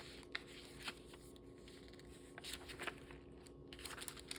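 Faint rustling and a few light ticks of paper pages and tucked-in paper pieces being handled and turned in a handmade junk journal, over a low steady hum.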